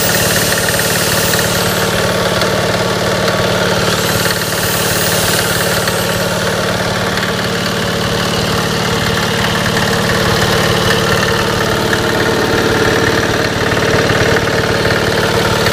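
Small single-cylinder Yanmar diesel engine running steadily at constant speed with a diesel knock, driving a generator head by belt.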